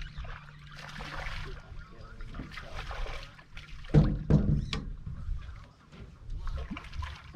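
Water lapping and sloshing against a small boat's hull, with a low steady hum early on and two loud knocks about four seconds in.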